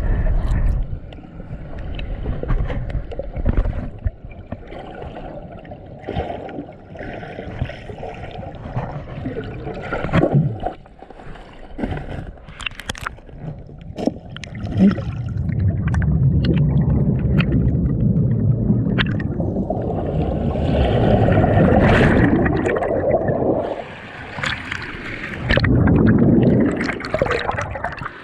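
Stream water gurgling and splashing close to the microphone, uneven in loudness, with scattered knocks and clicks.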